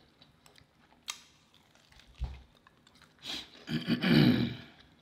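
Close-miked eating of a fried chicken leg: a sharp mouth click about a second in and a soft low thump a second later, then, from about three seconds in, a drawn-out low vocal sound of someone chewing with food in the mouth.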